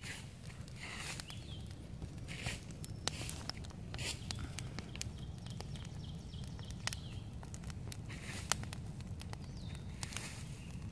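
Wood campfire crackling, with sharp snaps and pops scattered irregularly over a steady low rumble.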